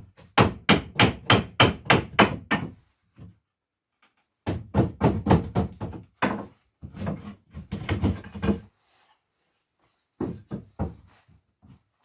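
Hammer blows on a wooden board in quick runs of about four a second, four runs with short pauses between, knocking a protruding piece of the workbench top loose.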